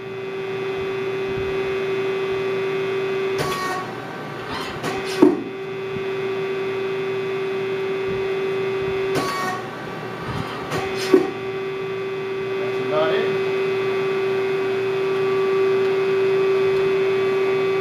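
Ganesh GT 1850 CNC lathe running with a steady mechanical hum. Short clicks break it twice, each followed about two seconds later by a sharp clunk, about five and eleven seconds in, as the machine cycles under the operator's control.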